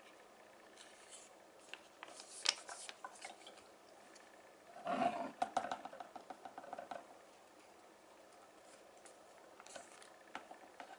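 Plastic hair-dye applicator bottle and its caps handled on a wooden table: scattered light clicks and taps. A louder stretch of clattering and scraping starts about five seconds in and lasts about two seconds, and a few more clicks come near the end as a cap is twisted onto the bottle.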